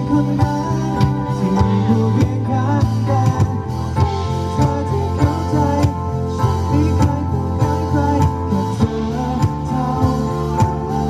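A live band plays a song through a PA at a sound check: guitar and bass over a steady drum beat, with a singer's voice in places.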